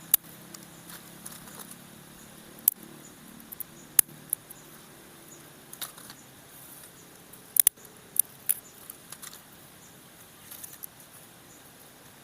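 Dry tree twigs snapping and crackling: sharp single snaps at irregular intervals, with fainter crackles between them and two snaps in quick succession about two-thirds of the way through.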